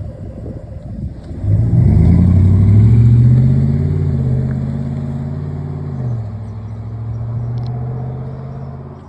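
5.7 L Hemi V8 pickup with a modified exhaust accelerating away, its engine note climbing in pitch for a few seconds. About six seconds in the pitch drops at an upshift, and the engine sound fades as the truck pulls away.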